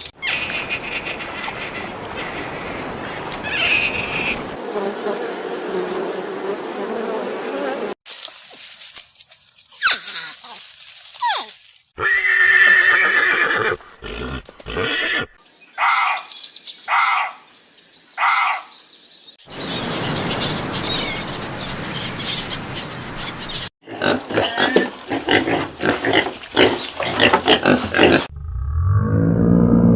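A string of different animal calls and noises in short clips, each a few seconds long, cut one after another. In one clip a short call repeats about four times in a row. Near the end a sustained tone with several pitches begins.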